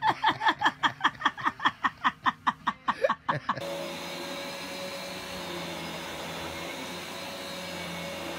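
A rapid string of short, pitched vocal pulses, about six a second, that breaks off about three and a half seconds in; then an upright vacuum cleaner running with a steady hum.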